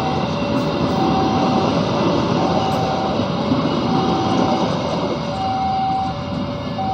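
Passenger train coaches rolling past on the rails with a steady rumble, easing slightly as the tail coach goes by near the end. Over it a level-crossing warning alarm sounds two alternating tones, high and low, each lasting under a second.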